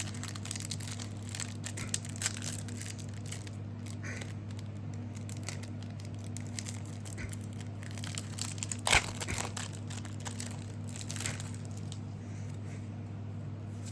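Plastic or foil trading-card packaging being crinkled and torn open by hand, in scattered soft rustles with a louder crinkling tear about nine seconds in, over a steady low hum.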